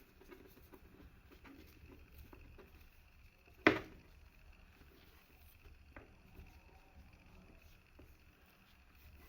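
Faint rubbing and handling as a phone screen is wiped with a wet wipe and cloth, broken by one sharp knock about a third of the way in and a couple of fainter taps later.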